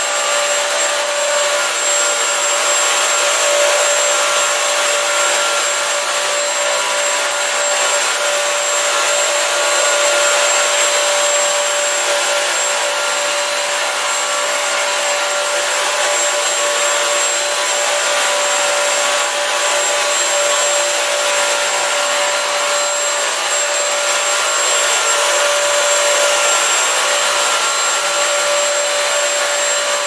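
Bissell CrossWave wet-dry vacuum running steadily while it cleans wet tile: an even motor noise with a steady hum and a high whine that hold unchanged.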